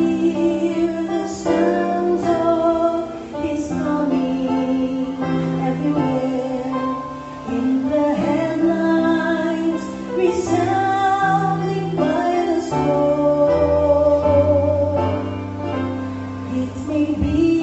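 A vocal quartet singing a gospel song in harmony, with women's voices leading over instrumental accompaniment and a low bass line; the chords change every second or two.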